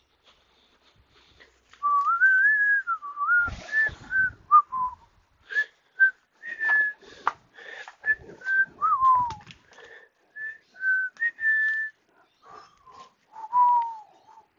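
A person whistling a tune: a single clear note sliding up and down in short phrases, beginning about two seconds in. Scattered clicks and knocks of handling are mixed in.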